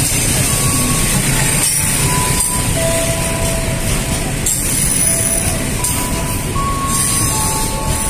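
Freight train of flat wagons loaded with shipping containers rolling past close by: a steady rumble of steel wheels on rail, with thin, high squeals of the wheels coming and going as the wagons run through a curve.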